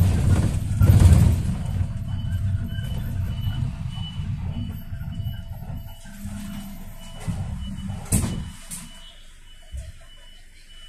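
Toyota Coaster minibus heard from inside the cabin, its engine and road rumble fading as it slows to a stop and settles to a quiet idle. A high electronic beep repeats about three times a second, and two sharp clunks come about eight seconds in.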